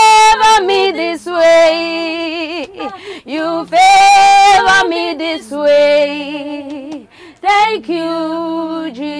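A woman singing a gospel song, with long held notes that waver in pitch and a lower voice underneath.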